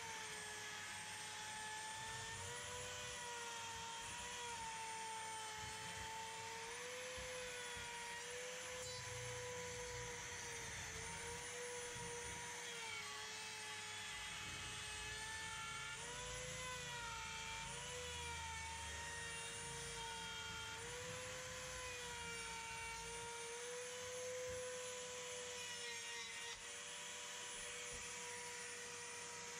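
Virutex router's motor running with a steady whine while it routs a flush-pull recess in a door through a template. Its pitch sags and recovers again and again as the bit takes the cut. Near the end it runs at an even pitch.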